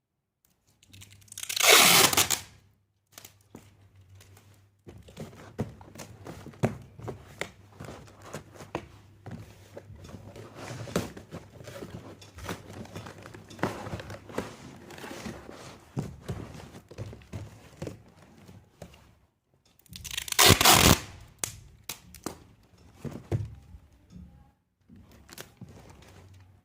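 Packing materials being handled: two loud tearing sounds, about two seconds in and again about twenty seconds in, with crinkling, rustling and small knocks in between.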